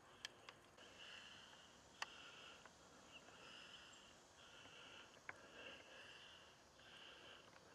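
Near silence: faint outdoor ambience with a high-pitched call coming and going in stretches of about half a second to a second, and a few sharp clicks.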